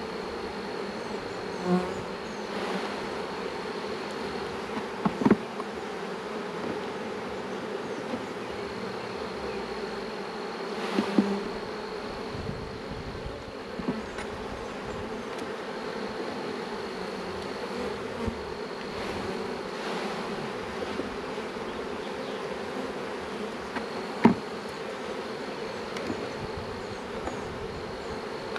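Honeybees from an opened hive buzzing in a steady hum, with three sharp knocks of a metal hive tool against the wooden frames as they are worked, the loudest near the end.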